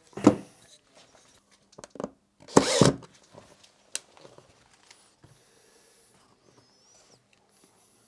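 Cordless drill-driver run in two short bursts, about half a second each, a moment in and again near three seconds, driving in a screw to fit the wooden rod and hose clamp. A sharp click near four seconds and fainter handling knocks follow.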